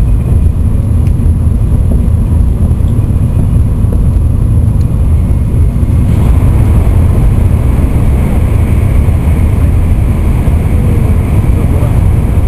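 Steady low rumble of an N700-series Shinkansen running at speed, heard inside the passenger car. About halfway through, the noise turns harsher and stronger in its upper range as the train enters a tunnel.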